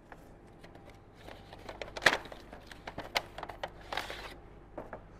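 Cardboard retail box of a plastic camping dishware set being handled and opened on a workbench. Scattered rustles, scrapes and clicks, with a sharp snap about two seconds in and a rasping scrape near four seconds.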